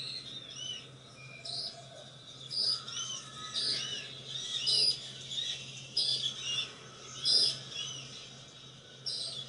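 Small birds chirping: short, high arched chirps and sharp chips in quick runs, repeated about once a second, over a faint steady low hum.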